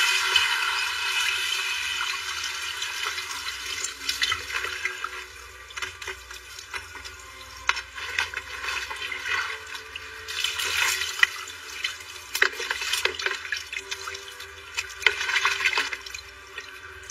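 Water poured from a plastic basin onto a hot metal mould holding freshly cast gold rings, quenching them: a loud rush of pouring and splashing that fades over the first few seconds, then comes back in shorter bursts of splashing with small clicks around the middle and near the end.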